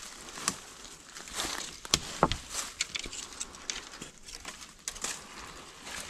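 Footsteps crunching through dry leaves and undergrowth, with an irregular crackle of twigs and branches brushing past, and two sharper snaps about two seconds in.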